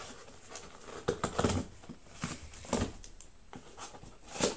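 Cardboard shipping box being handled and pried open by hand, its flaps scraping and rustling in a string of short bursts, the loudest near the end.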